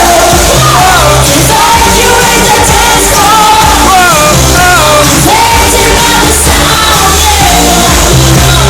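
Live Eurodance pop song played loud through a PA: a heavy electronic bass beat under a gliding high melody line, with singing.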